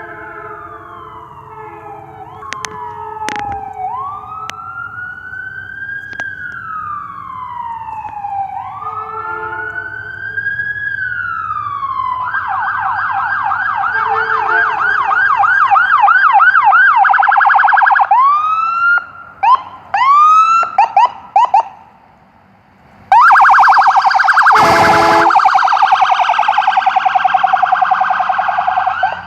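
Ambulance electronic siren on an emergency response. It starts as a slow wail rising and falling in pitch and gets louder as it nears. About twelve seconds in it switches to a fast yelp, then gives a few short whoops, a brief lull and a very fast warble, with a short blast near the end. A train horn chord fades out in the first couple of seconds.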